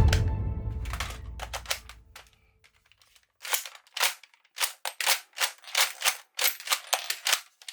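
A low boom fades out over the first two seconds. After a short silence, a toy gun's mechanism gives a run of about a dozen sharp, irregular clicks over some four seconds.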